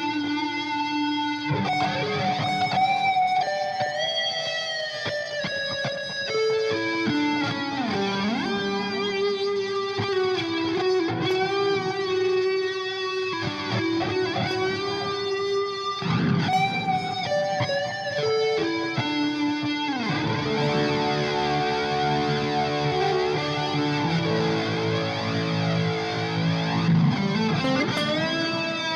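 Electric guitar fitted with an EMG DG-20 pickup set, played on the neck pickup: a lead line of single notes with string bends, moving about two-thirds of the way through to held notes ringing together like chords.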